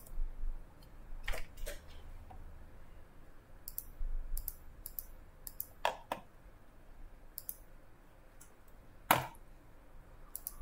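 Scattered single clicks of a computer mouse and keyboard, a dozen or so spread unevenly, with one louder click near the end.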